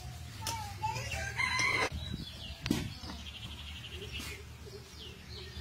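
A rooster crows once about a second in, followed by a single sharp knock a little later, with a small bird's fast high trill after it.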